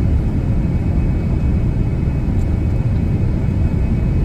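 Steady low rumble of airliner cabin noise, engines and airflow heard from inside the passenger cabin during the landing approach, with a faint steady high whine above it.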